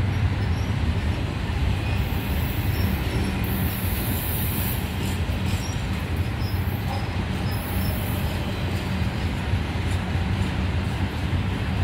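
Norfolk Southern intermodal freight train's loaded flatcars and double-stack well cars rolling past, a steady low rumble of wheels on rail. Several brief high-pitched wheel squeals come in a couple of seconds in and again several seconds later.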